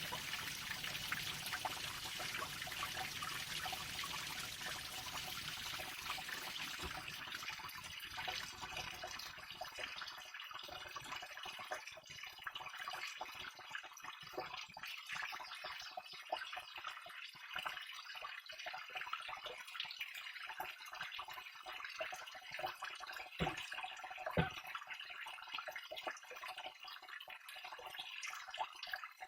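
Water of a small waterfall falling and splashing, a full steady rush at first that thins to a lighter trickle with separate drips and splashes about ten seconds in.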